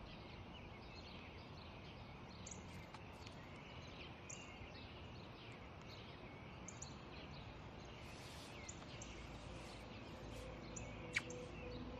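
Faint outdoor park ambience: a steady low hiss with small birds chirping here and there. One sharper, louder note comes near the end.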